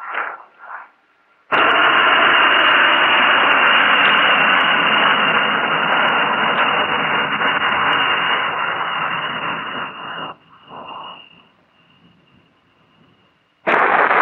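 Radio static from a keyed two-way radio channel: a loud, even hiss with a thin steady tone on top cuts in suddenly about a second and a half in, runs for about nine seconds and cuts off abruptly. A few brief broken radio sounds come before and after it.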